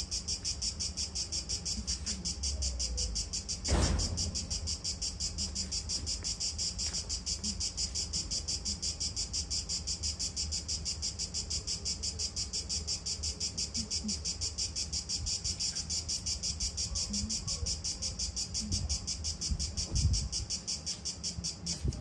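A steady, high-pitched insect chorus chirring with a fast, even pulse, with a low rumble beneath and a thump about four seconds in and another near the end.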